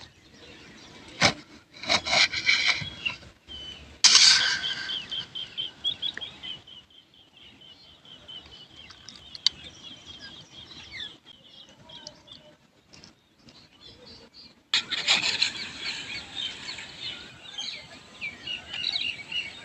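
Small birds chirping in quick repeated notes, with a few sharp knocks and rubbing handling sounds in between.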